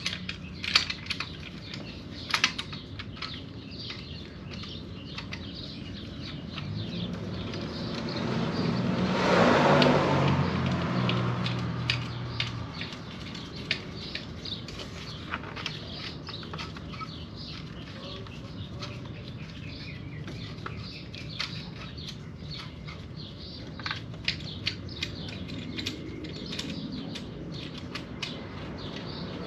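Scattered clicks and taps of hand tools and metal parts on a BMW S55 engine's top end while its fuel injectors are being removed. Near the middle, a passing vehicle swells and fades over several seconds; it is the loudest sound.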